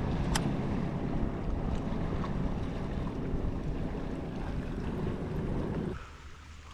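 Boat running on the water: a low rumble of the motor mixed with wind on the microphone and water noise, which drops away suddenly about six seconds in.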